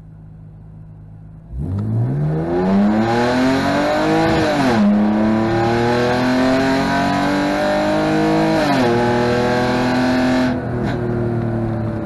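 BMW E46 engine under full-throttle acceleration, heard from inside the cabin. After a quiet idle it revs up hard about a second and a half in. The pitch drops twice as the ZF 5HP19 automatic upshifts, near five seconds and again near nine, each time climbing again, and the level falls back near the end. The gearbox is shifting through the gears normally on this test run after its gear selector switch repair.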